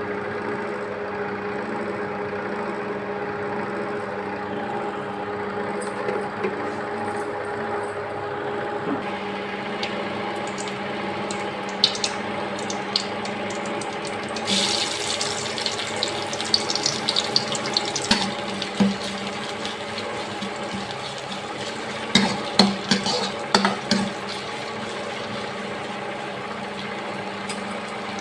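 Water sloshing and pouring during food preparation, over a steady hum. A run of sharp clinks and knocks comes in the middle.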